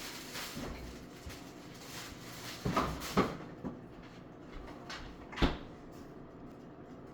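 Several sharp knocks and clunks of kitchen handling, objects set down or doors and cookware moved, spaced irregularly with the loudest about five and a half seconds in.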